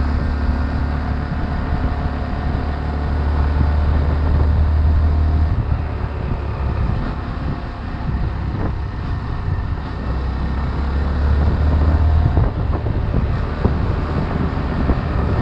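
Honda 125 cc single-cylinder motorcycle running along the road at a steady speed, with a heavy low rumble throughout.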